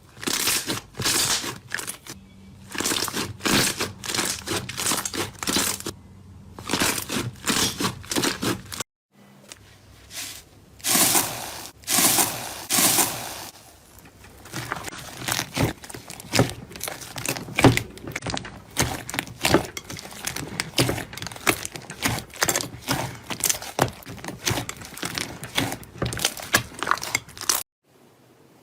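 Slime being squeezed, pressed and poked close to the microphone, making a dense run of crackling, crunching pops. The sound breaks off briefly about a third of the way in, where the clips change.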